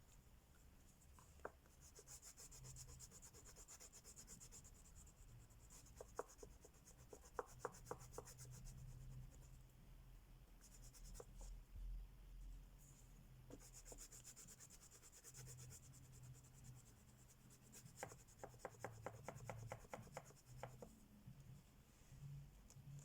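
Crayola wax crayon scratching faintly on paper in fast back-and-forth coloring strokes. The strokes come in stretches with short pauses, and there are runs of light ticks about a third of the way in and again near the end.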